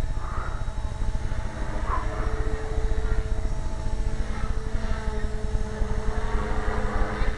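450-size electric RC helicopter flying overhead, its rotor and motor giving a steady whine, the head spinning at about 3000 rpm, over a low, uneven rumble.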